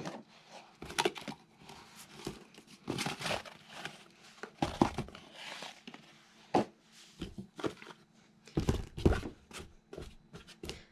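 A cardboard box of baking soda being handled and emptied into a container: irregular crinkling and rustling of the cardboard with scattered knocks and short hissing stretches of the powder pouring.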